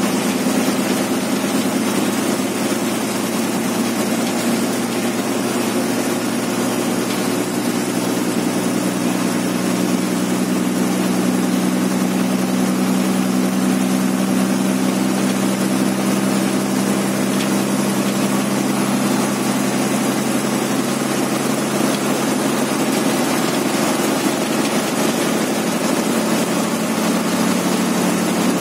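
Steady drone of a state transport bus's diesel engine and road noise, heard from inside the cabin while it cruises on the highway. A faint high-pitched whine sits above the drone.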